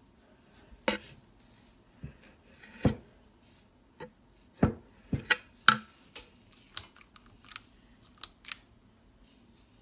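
Metal cookie scoop clicking and scraping as dough balls are scooped and released onto an insulated metal baking sheet: a dozen or so irregular sharp clicks and knocks.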